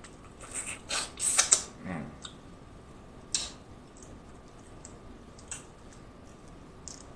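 Close-up eating sounds: wet chewing and smacking on a bite of boiled shrimp in the first second and a half, then a few separate soft crackles and clicks as a shrimp's shell is peeled.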